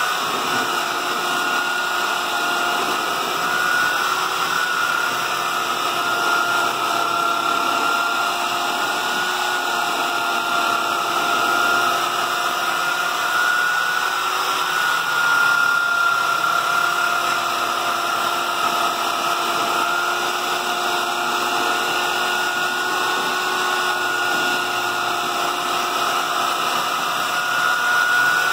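Handheld belt sander running at a steady pitch, its belt sanding the edge of a clear plastic aircraft canopy.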